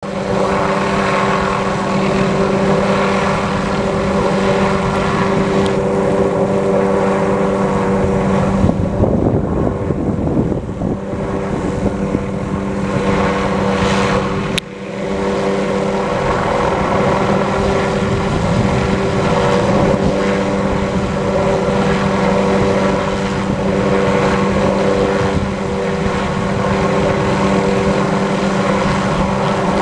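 Helicopter hovering overhead: a steady drone of rotor and engine holding one pitch, with a low rumble around ten seconds in and a brief dip in level about fifteen seconds in.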